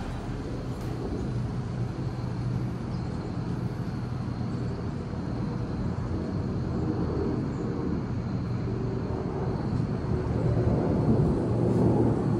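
Steady low rumble of wind buffeting the microphone, growing louder near the end.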